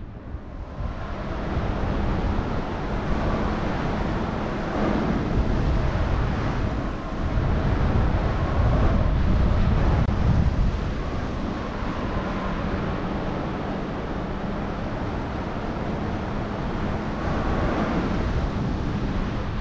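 Wind rushing over the camera microphone of a paraglider in flight, a steady noisy rush that swells and eases.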